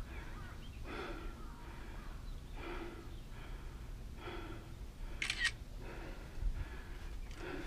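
A person breathing hard in regular, heavy breaths about every one and a half seconds, with a brief sharp rattle a little after five seconds in.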